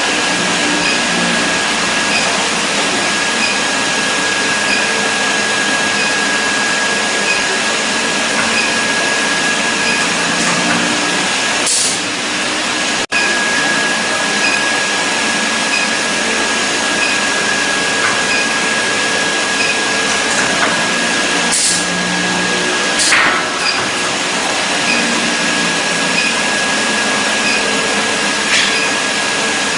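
Induction brazing equipment running: a steady loud hiss with a constant high whine, broken by a few short sharp hisses about halfway through.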